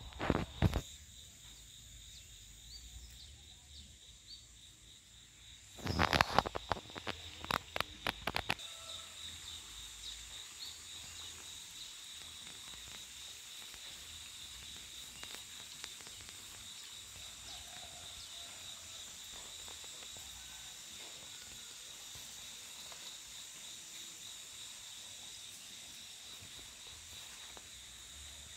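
Steady high-pitched insect chorus, two even trilling tones held without a break. A run of loud rustles and knocks from movement through the undergrowth comes about six to eight seconds in, with a brief pair of knocks at the very start.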